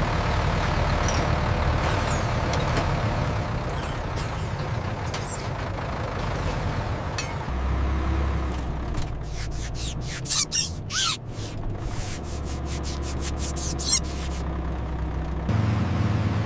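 A heavy engine running steadily, its low rumble shifting in level a few times. Near the middle comes a run of short, sharp hisses.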